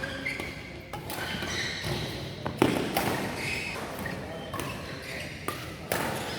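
Badminton rally: rackets striking the shuttlecock with sharp cracks about every one to three seconds, echoing in a large hall, the loudest hit about two and a half seconds in.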